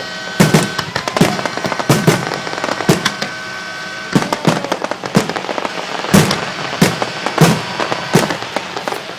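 Fireworks finale: a rapid barrage of sharp booms and bangs, several a second at times, with crackling between them and steady high tones held behind them.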